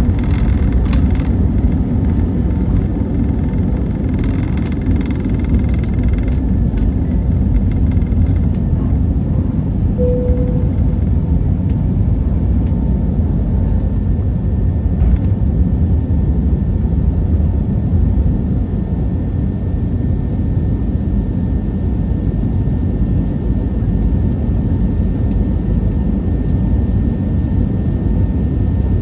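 Steady cabin noise of an Airbus A320neo climbing out after takeoff, heard from a window seat over the wing: a heavy, even low rumble of engines and rushing air. A short single tone sounds about ten seconds in.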